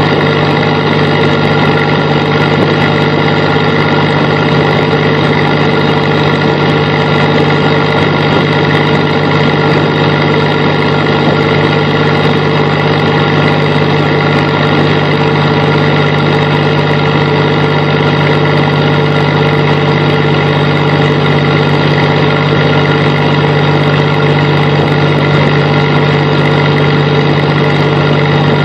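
A fishing boat's engine running with a loud, steady hum that does not change.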